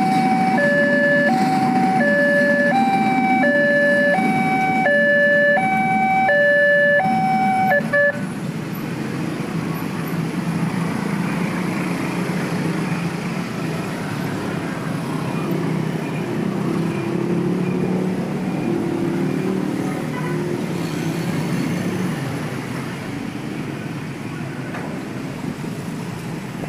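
Railway level-crossing warning alarm sounding an alternating high-low two-tone signal, about one cycle a second, over the rumble of a passing freight train. The alarm cuts off about 8 seconds in as the crossing opens, leaving the steady engine noise of motorcycles and cars moving off across the tracks.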